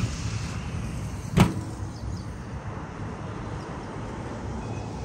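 Steady low rumble of road traffic, with one sharp knock about a second and a half in.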